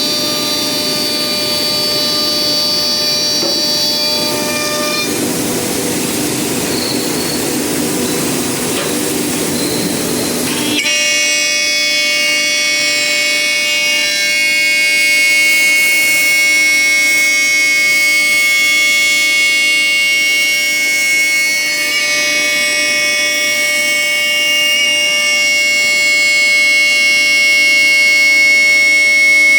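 MASTER TC4 5-axis CNC router's spindle running with a steady, many-toned whine over cutting noise, as it machines wood. The sound changes abruptly about five seconds in and again about eleven seconds in, with the whine clearer and louder after the second change.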